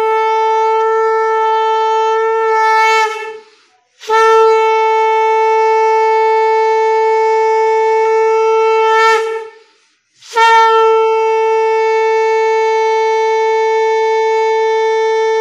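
Conch shell (shankha) blown in three long, steady blasts on one note. The first two end with a quick upward flick in pitch, and the third cuts off abruptly.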